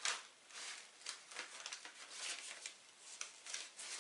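A 7-inch vinyl single in its paper sleeve being handled: soft, irregular rustling and scuffing of paper as the sleeve is turned and rubbed between the fingers, with a slightly sharper scuff right at the start.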